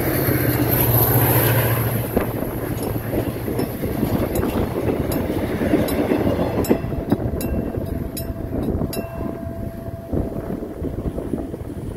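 Diesel-locomotive-hauled Mugunghwa passenger train passing over a level crossing: a low engine drone over the first two seconds, then the rumble of the coaches rolling by with sharp clacks from the wheels, fading as the train moves away near the end.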